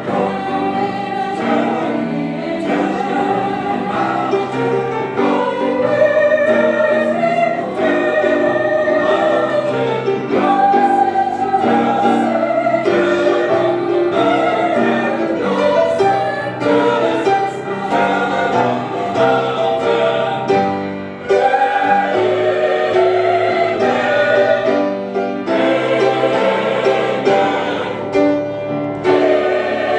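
Church chancel choir singing, many voices in harmony, with sustained and moving sung notes throughout.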